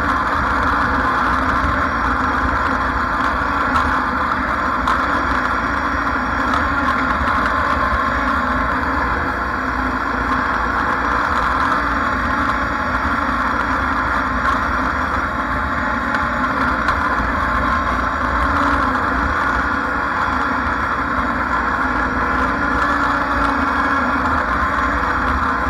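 Lawn mower engine running steadily while mowing.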